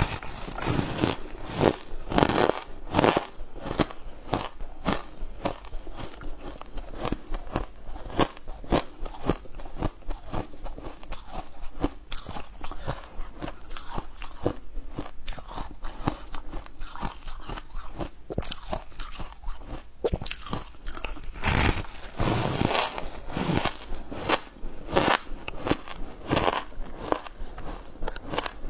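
A person biting into and chewing a flaky white snack close to a lapel microphone, with many sharp crunches and crackles at an uneven pace, loudest in a cluster about three quarters of the way through.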